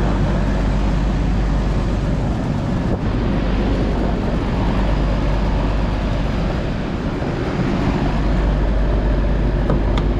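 Rooftop packaged AC unit running steadily, condenser fans and compressors on, with both cooling stages running.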